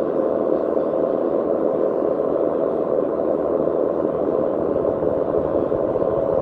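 Steady filtered synthesizer noise drone: a dense, unchanging wash centred low in the midrange, with no beat or melody.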